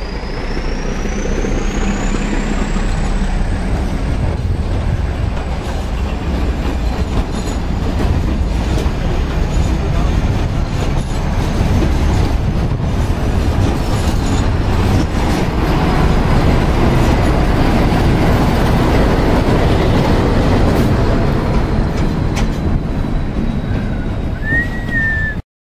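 Nilgiri Mountain Railway train's coaches rolling slowly past, a steady rumble with scattered clicks of the wheels over the rail joints. A thin high wheel squeal rises in pitch over the first few seconds, then holds and slowly sinks. The sound cuts off suddenly near the end.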